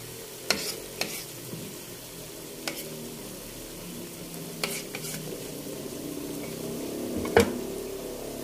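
Battered tape singkong (fermented cassava) fritters deep-frying in hot oil, sizzling and bubbling steadily, with a few sharp pops scattered through and the loudest one near the end.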